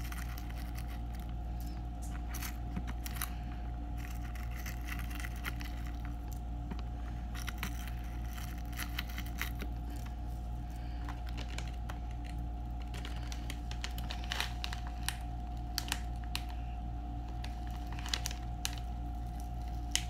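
Dried flower buds crackling and clicking faintly as fingers pick through them and drop them onto soap in a silicone mould, with a plastic zip bag crinkling near the end. A steady low hum runs underneath.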